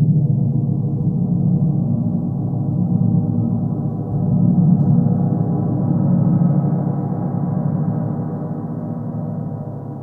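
32-inch hand-hammered stainless steel gong, close in character to a wind (Fen) gong, played with a large soft mallet. It gives a deep, sustained wash with no sharp attacks that swells several times as the strokes are added, its overtones spreading higher. In the last few seconds it rings on and slowly fades.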